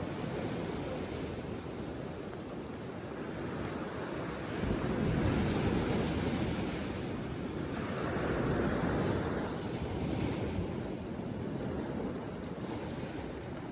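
Ocean waves breaking and washing up the beach, swelling louder a few seconds in and again about two-thirds through, with some wind buffeting the microphone.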